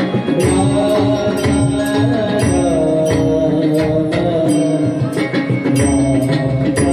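Marathi abhang accompaniment: a harmonium holds sustained notes while pakhawaj and tabla strokes keep a steady rhythm.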